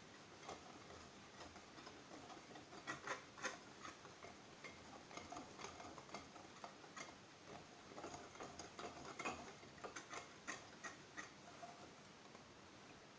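Faint, irregular clicks and taps of a kitchen utensil against a mixing bowl as dry cake ingredients are stirred together.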